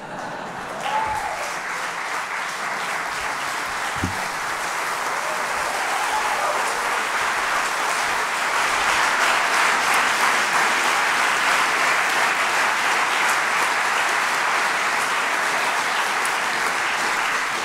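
Audience applauding, growing louder over the first few seconds and then holding steady.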